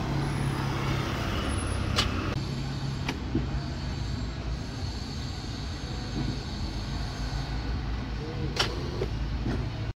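A no-start on an Isuzu Panther: a few sharp clicks over a steady low hum as the starter is tried, and the engine does not catch. The fault is traced to dirty battery terminals that do not make contact.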